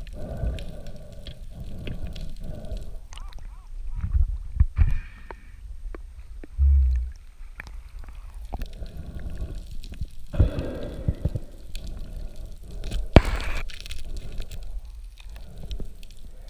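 Muffled underwater noise: a low rumble of moving water with scattered knocks and clicks from the speared fish and spear shaft being handled. There is a short low thud a little before seven seconds in and a sharp click about thirteen seconds in.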